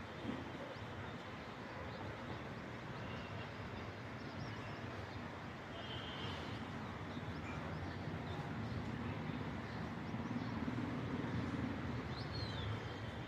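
Teesta river rushing steadily, with short bird chirps over it a few times. A low rumble swells in the second half and fades near the end.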